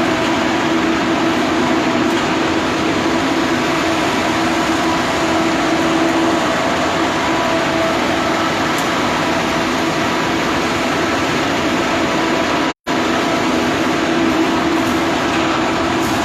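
Steady machinery drone with a low hum running through it, cut off completely for an instant about thirteen seconds in.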